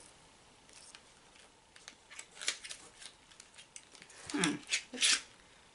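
A small cardboard cosmetics box being handled and opened by hand: scattered light clicks and crinkles, then a cluster of clicks with two short squeaky sliding sounds about four and five seconds in as the lip gloss tube is drawn out of its box.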